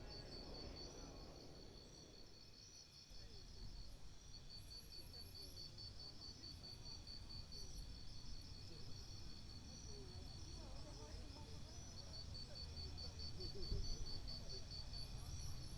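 Insects trilling steadily in a fast-pulsed high note, pausing briefly a few times, over a low rumble that grows louder near the end.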